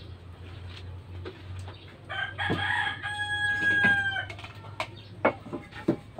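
A rooster crowing once, one long held call starting about two seconds in. Near the end come a few sharp knocks of a pot and basin being handled.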